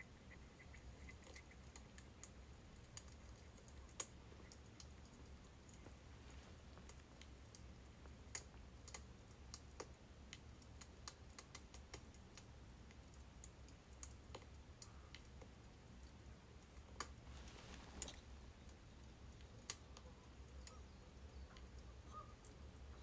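Faint crackling of burning birch logs: sparse, irregular sharp pops over a low steady hum.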